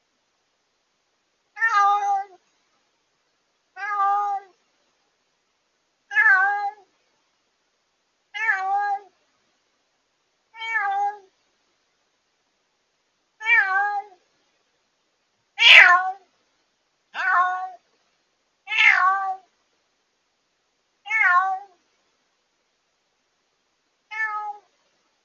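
White cat, a newly rescued former stray, meowing loudly over and over: eleven meows about two seconds apart, the loudest about two-thirds of the way through. It is the night crying of a freshly rescued cat starting life indoors, picked up by a pet-monitoring camera's microphone with some clipping distortion.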